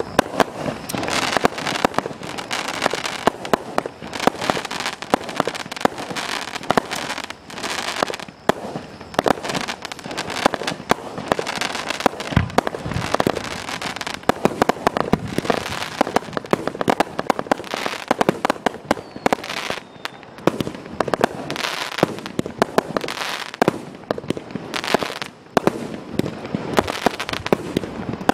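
Wezz MC127 multi-shot consumer firework firing a fast, continuous string of shots and small aerial bursts, several pops a second with no real pause.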